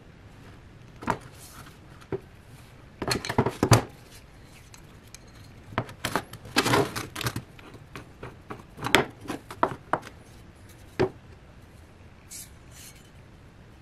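Metal clinks and scrapes of hand tools on a rusty steel burner tube and its brass gas fitting, as the fitting is worked loose. They come in short clusters with pauses between.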